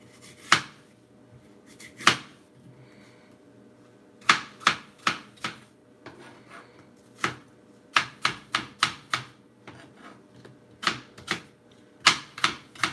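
Kitchen knife chopping apple on a plastic cutting board: sharp knocks of the blade hitting the board, some single and some in quick runs of four to six strokes.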